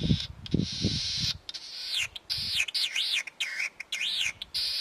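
Latham's snipe calling from a perch: a harsh rasping note, then a run of about five repeated calls that dip and rise in pitch. A few low thumps come in the first second or so.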